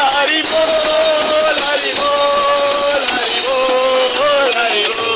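Harinaam kirtan: a group of men chanting together in long held, sliding notes, accompanied by a mridanga drum and jingling hand cymbals.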